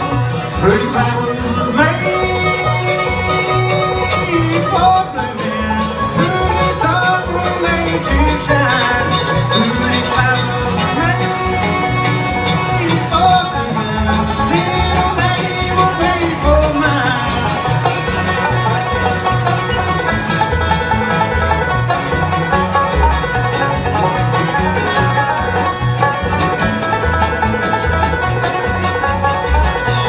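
Live bluegrass band playing an instrumental passage: banjo, fiddle and acoustic guitar over an upright bass keeping a steady beat.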